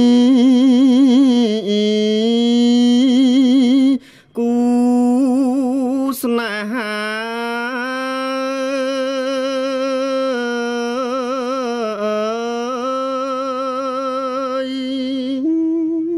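A monk's voice chanting a Khmer Buddhist sermon verse in long, drawn-out notes with a wavering pitch. It pauses for breath about four seconds in, then slides up and holds steadier notes.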